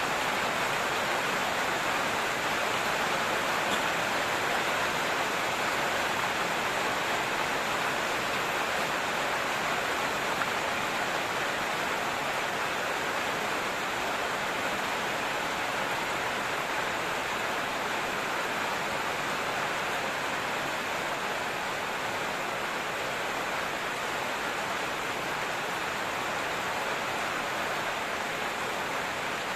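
Rain falling steadily in a dense, even hiss, with no separate drops or other sounds standing out.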